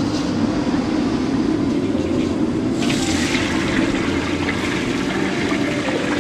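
Whole chickens deep-frying in a large wok of hot oil: a loud sizzle starts a little before halfway through as they go into the oil. Under it runs a steady low roar from the blower-fed wok stove.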